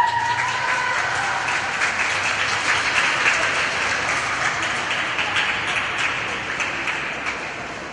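Spectators clapping and applauding at the end of a figure-skating program. The applause dies down near the end.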